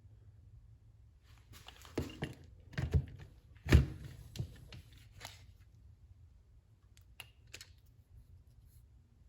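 Parts of a disassembled cordless impact driver being handled and turned over: a run of knocks and clatter, the loudest just before four seconds in, then two light clicks near the end.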